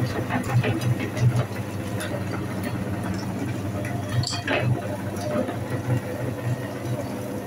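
Electric meat grinder's motor running steadily, a low hum that swells in a slow, regular pulse, with scattered small clicks and rattles.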